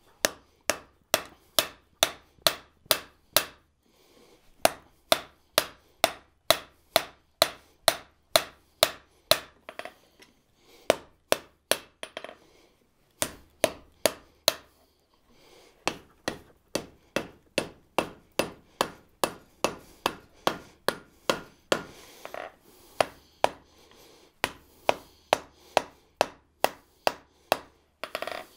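Hand hammer striking a red-hot steel bar on an anvil, a steady run of blows about two or three a second with a few short pauses. This is the jaw and boss of a pair of blacksmith's tongs being forged and refined.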